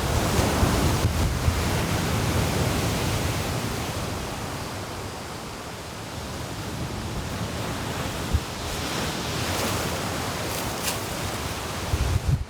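Strong wind and waves washing onto a beach, swelling and easing, with the wind buffeting the microphone in a low rumble.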